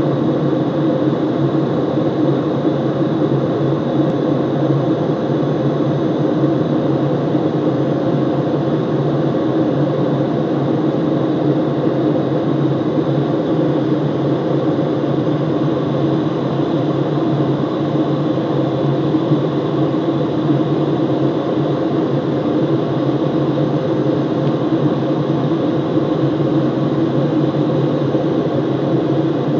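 Jet airliner cabin noise in flight: the steady rush of engines and airflow heard from inside the cabin, a constant low drone with a faint high whine.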